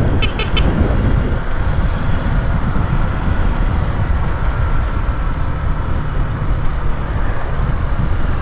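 Wind rushing over the microphone together with the Honda Titan 150's single-cylinder engine running on the move, with a few short clicks near the start. The rider says the engine has an abnormal, annoying noise.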